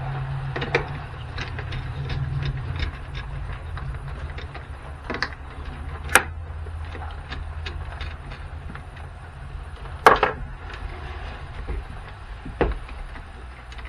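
Scattered clicks, knocks and clinks of hand tools and small parts being handled while a jump pack is taken apart, the loudest knocks about six and ten seconds in, over a steady low hum.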